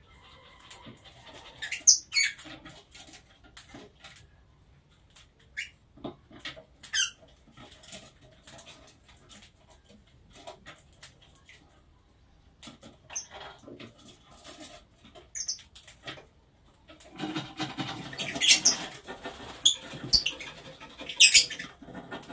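Cage birds (Fischer's lovebirds and budgerigars) giving scattered short, sharp chirps and squeaks among small clicks, turning into a dense burst of chattering about seventeen seconds in.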